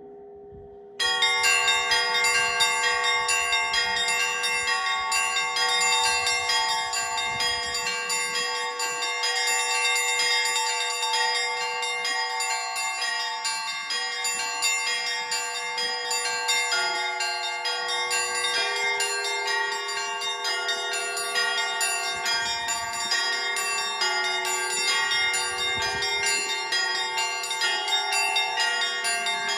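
Russian Orthodox church bells rung by a bell-ringer: many bells sounding together in a dense, continuous peal with quick strikes of the small bells over the steady ring of the larger ones, starting suddenly about a second in.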